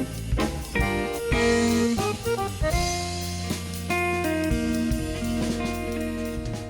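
Background music with a jazzy feel: a melody of held notes, perhaps on saxophone, over bass and a drum kit.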